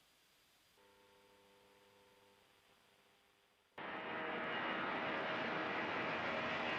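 A faint steady hum for the first few seconds, then, almost four seconds in, a sudden cut to the loud steady roar of a C-17 Globemaster III's four turbofan jet engines.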